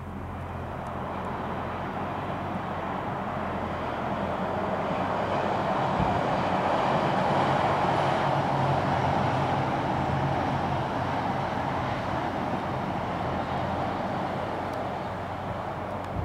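A DB Class 425 electric multiple unit runs across a steel truss railway viaduct. Its rolling noise swells to a peak about halfway through, then fades as it moves on.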